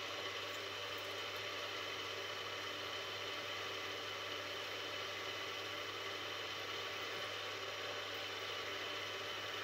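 Benchtop mini milling machine running steadily with a low hum, its spindle turning a 2.6 mm drill being fed through a small metal part.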